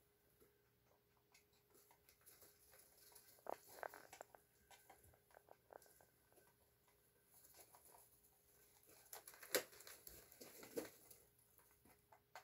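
Rabbits eating pellets and moving in wood-shaving bedding: faint, scattered crunching and rustling. A few louder clicks come about four seconds in and again near ten seconds.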